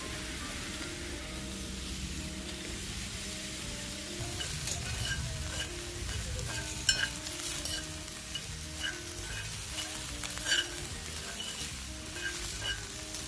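Meat sizzling steadily in a cast-iron skillet over a campfire, with a few sharp clicks, twice louder, about halfway through and near the end.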